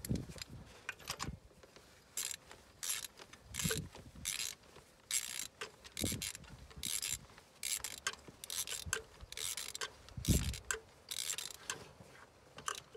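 Hand ratchet wrench clicking in short runs, about one or two a second, as a new spark plug is screwed into the cylinder head, with a couple of dull knocks among the strokes.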